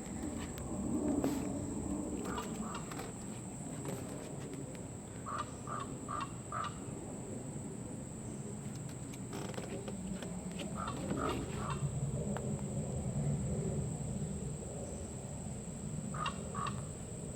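A crow making odd calls: short, evenly spaced notes in quick runs of two to four, heard four times.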